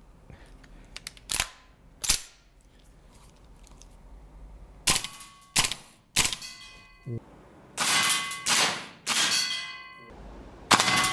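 PTS Mega Arms MKM AR15 gas blowback airsoft rifle firing. There are two single shots, then a run of shots that closes in quicker strings, with a metallic ringing after several of them.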